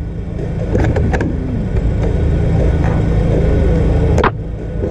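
A single shot from an upgraded Tokyo Marui VSR-10 spring-powered airsoft sniper rifle, a sharp crack about four seconds in, over a steady low rumble. A few lighter clicks come about a second in.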